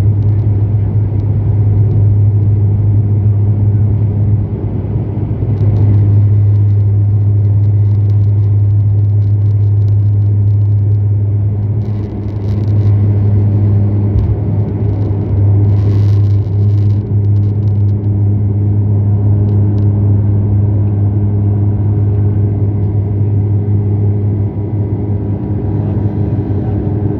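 Cabin sound of a De Havilland Canada Dash 8-400's Pratt & Whitney PW150A turboprops at takeoff power through the takeoff roll and lift-off: a loud, steady, low propeller drone with the rush and rumble of the run. A few light clicks and rattles come through midway.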